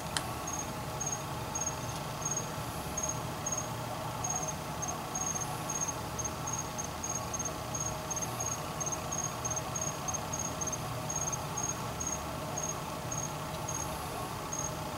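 A cricket chirping in short, high pulses, a few a second and slightly irregular, over a low steady hum. A single click near the start.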